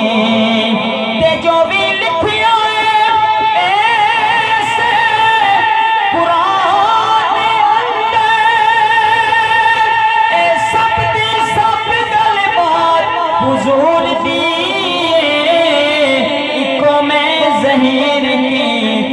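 A man singing a naat into a microphone, unaccompanied, drawing out long wordless melismatic notes that waver and slide, some held for several seconds.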